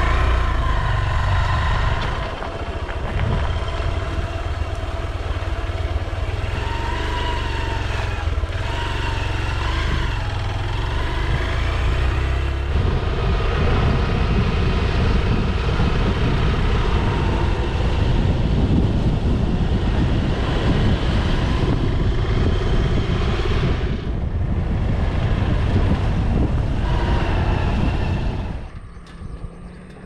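Motorcycle on the move, its engine running steadily under heavy wind rumble on the microphone; the noise drops away sharply near the end.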